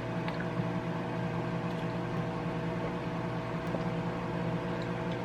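Steady machine hum with a few fixed tones, as from a household appliance running, with a couple of faint clicks.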